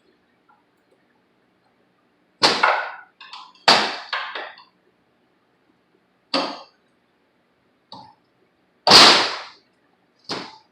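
Hammer blows on metal, about seven sharp strikes at uneven intervals with the loudest near the end, knocking at a seized pressure-washer pump to free it from its 163 cc engine.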